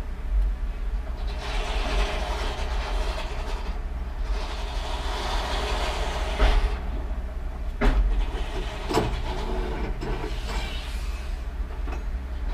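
Heavy diesel machinery running: a steady low engine rumble with three long swells of mechanical clatter and a few sharp knocks about two thirds of the way through.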